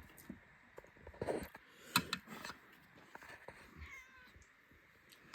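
Domestic cat meowing quietly a few times, with a sharp click about two seconds in.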